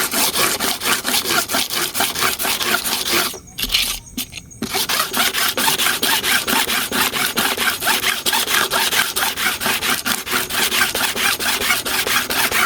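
Metal hair-clipper blade rubbed back and forth on smooth sandpaper with light pressure, a quick, even scraping of about three strokes a second with a brief pause about three and a half seconds in. It is flattening and balancing the blade's face before sharpening.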